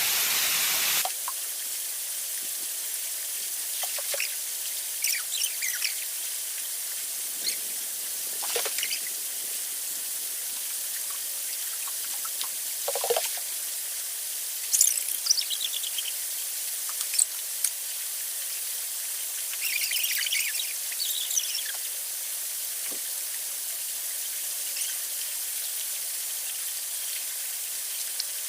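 Steady hiss of rushing water, louder for the first second and then dropping sharply, with birds chirping in short calls on and off.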